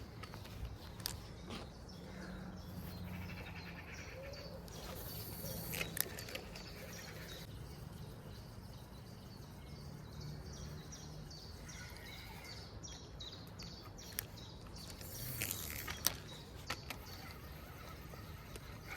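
Quiet outdoor ambience with a low steady background noise and small birds chirping now and then, broken by scattered sharp clicks and knocks.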